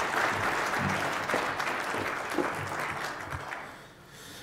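Audience applause, dying away about three and a half seconds in.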